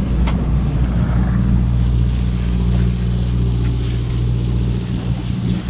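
Sportfishing boat's engine running steadily with a low, even hum, with wind and water noise over it.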